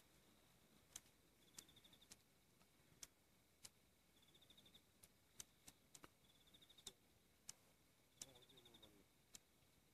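Near silence of a night bush: an insect chirps in short, quick trills about every two seconds, among scattered sharp clicks.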